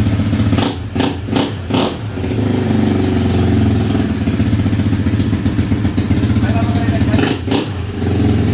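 Racing-built Yamaha Mio 160 scooter engine, a single-cylinder four-stroke on a 30 mm carburettor, running steadily. Its sound drops out briefly a few times, about a second in and again near the end.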